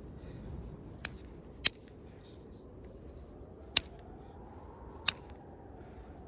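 Four sharp, separate clicks of hornstone being flintknapped, each a flake coming off the blade as the knapper works to remove a flaw left by a flake that dove too deep.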